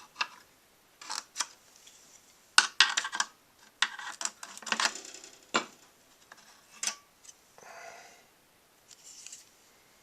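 Small hard clicks and clatter from computer parts being handled during disassembly, in irregular bursts that are busiest in the middle, with a soft rub near the end.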